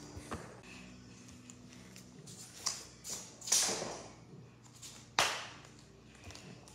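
Scattered taps and swishing rustles from someone moving about close by; the loudest is a sharp knock about five seconds in.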